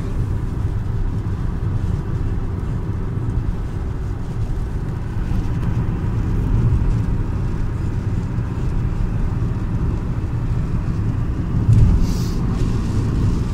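Steady low rumble of a car on the move, with a brief hiss about twelve seconds in.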